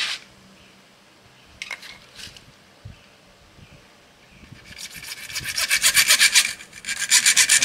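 A hand tool is worked back and forth on a plastic water pipe to trim it to length. It makes fast, even strokes, about seven a second, starting about five seconds in, after a sharp click and a couple of light knocks.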